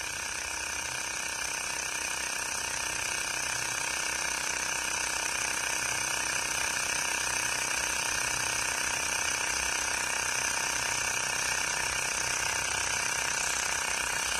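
Xiaomi Mi portable tyre inflator's small electric compressor running steadily with a fast mechanical rattle as it pumps a car tyre at about 30 PSI.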